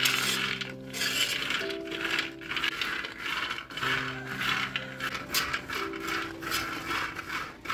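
Raw peanuts rattling and scraping against an aluminium kadai as a wire whisk stirs them while they dry-roast, in quick repeated strokes, over background music.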